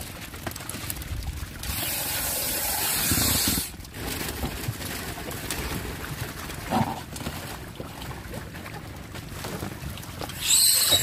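Plastic bags of live carp handled and set down in a wooden boat: plastic rustling and soft knocks on the boat's planks. A brighter hiss runs from about two seconds in and stops abruptly, and a sharp, high whistling hiss starts near the end.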